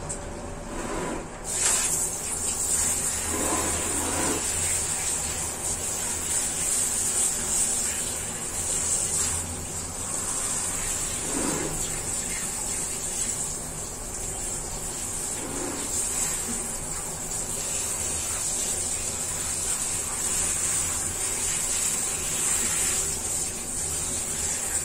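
Water spraying steadily from a handheld shower head onto a dog's legs and the tiled floor. It starts with a hiss about a second and a half in.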